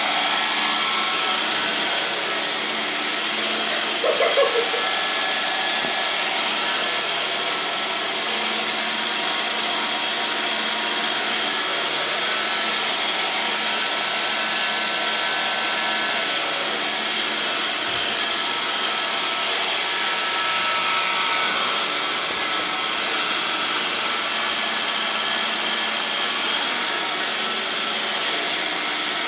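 iRobot Roomba robot vacuum cleaner running steadily, its motor and brushes giving an even whirring hiss with a few steady whine tones.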